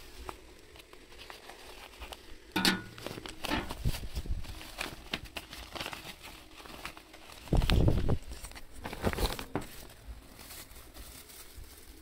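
Red paper wrapping being snipped with scissors and pulled open: crinkling, rustling and scattered clicks, with a dull bump from handling past the middle.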